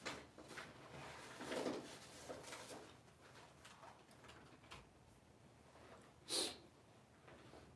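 Faint scattered knocks and rustles of small objects being handled, with one short, sharp clack about six seconds in that is the loudest sound.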